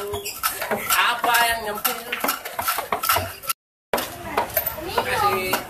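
Rapid metallic clinking and jingling from a street busker's hand-held jingle shaker, with voices over it. The sound cuts out completely for a moment a little past halfway.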